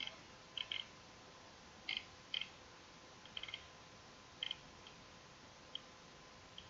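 Faint, irregular clicks, about ten of them, several coming in quick pairs, over a faint steady electrical whine.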